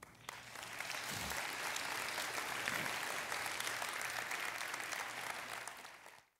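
Audience applauding at the close of a talk. The clapping builds over the first second, holds steady, and is cut off abruptly near the end.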